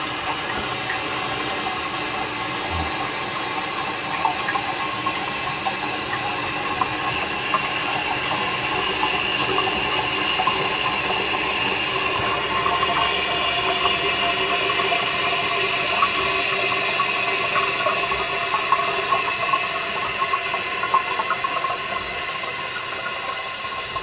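Toilet tank refilling through its fill valve after the water supply has been turned back on: a steady hiss of running water that swells slightly in the middle and eases a little near the end.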